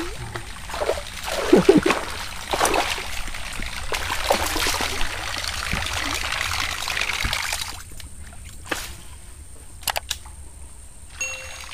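Surface water churning and splashing as a double-propeller topwater lure is reeled back across the river for several seconds. It then goes quieter, with a few sharp clicks.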